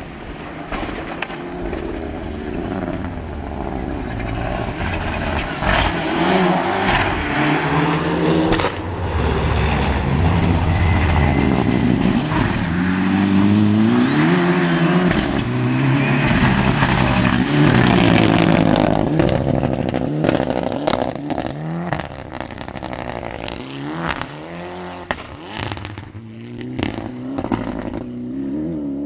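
Rally car engine revving hard, its pitch repeatedly climbing and dropping through gear changes and lifts. It grows louder as the car approaches, is loudest around the middle, and fades as it drives away, the revs still rising and falling.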